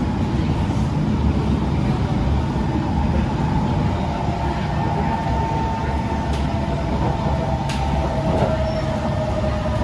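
SMRT Kawasaki C151 metro train running, heard from inside the carriage: a steady rumble of wheels on track with a motor whine, one tone of which falls slowly in pitch in the second half. A couple of faint clicks near the middle.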